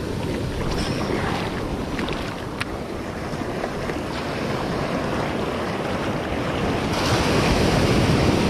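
Ocean surf washing and breaking in the shallows, with wind buffeting the microphone. The rush grows louder about seven seconds in as a wave breaks close by.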